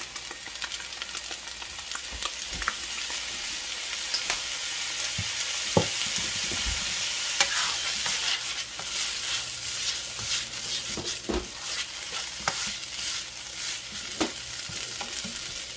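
Rice frying in oil with soy sauce and seasonings in a large wok, sizzling steadily while a spatula stirs and scrapes through it, with scattered sharp taps of the spatula against the pan.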